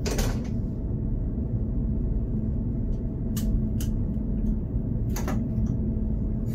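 Inside a train driver's cab: a steady low rumble with a constant hum from the train, broken by a few sharp clicks, one at the start, three close together around the middle and a double click a little later.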